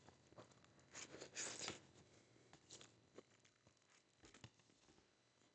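Faint sounds of noodles being eaten with chopsticks from a bowl: a short cluster of soft noisy sounds about a second in, then a few light ticks.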